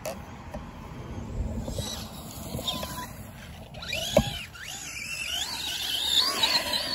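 RC monster truck's brushless electric motor whining, rising and falling in pitch with the throttle as it drives on grass, with one sharp thump about four seconds in.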